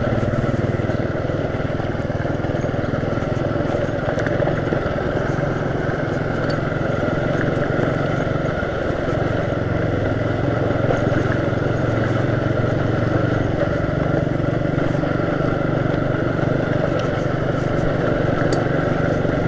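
Keeway Euro motorcycle engine running steadily while the bike rides over a rocky dirt trail. Its pitch stays fairly even and dips briefly about eight seconds in, with a few faint clicks and rattles over the stones.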